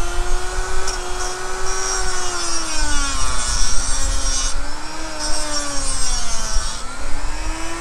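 Dremel-type rotary tool with a small cutting disc whining as it grinds through a steel hose-clamp band. Its pitch sags about three seconds in and again near the end as the disc bites into the metal, with a hissing grind while it cuts.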